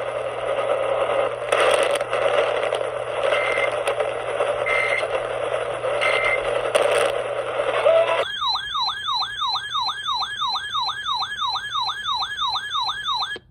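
Radio static with a low hum and three short high beeps, then, about eight seconds in, a loud siren-like yelping tone sweeping up and down about three times a second, which cuts off near the end. This is an Emergency Alert System attention signal ahead of a broadcast alert.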